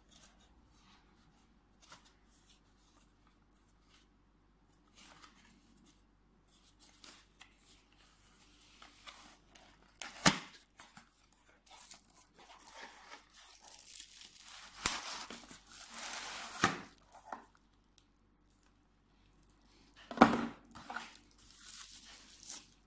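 A cardboard box being opened by hand: scattered soft handling noises, a sharp snap about ten seconds in, then a long stretch of cardboard rustling and tearing. A loud knock comes near the end, followed by crinkling of the plastic bubble wrap around the light.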